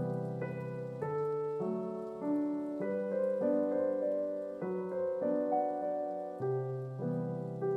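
Background solo piano music: single melody notes over held bass notes.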